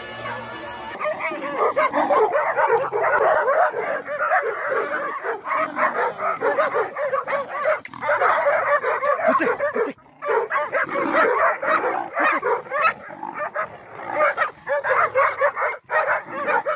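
Several dogs barking and yelping without pause, the barks coming fast and overlapping, with a brief break about ten seconds in.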